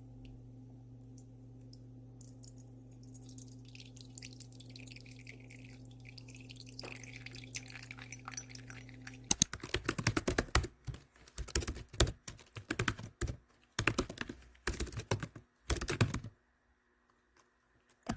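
A steady low hum for about nine seconds, then fast typing on a computer keyboard in bursts with short pauses between them.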